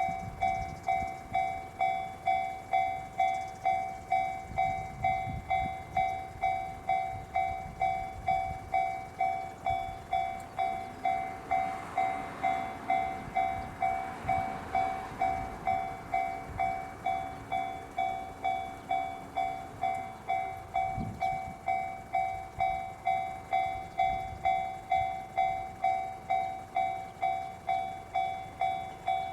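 Japanese level crossing warning bell ringing steadily, about two even rings a second, signalling that a train is approaching. Partway through a train passes over the crossing, adding a rumble and a low hum under the bell.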